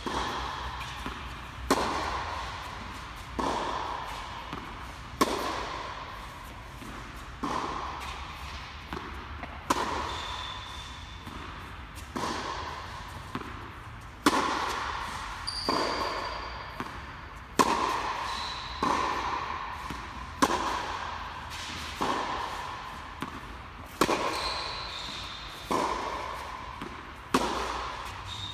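Tennis rally: a tennis ball struck by rackets and bouncing on the court, a hit every second or two, each impact echoing in the large tented hall. A few short high squeaks, from shoes on the court surface, come between some of the hits.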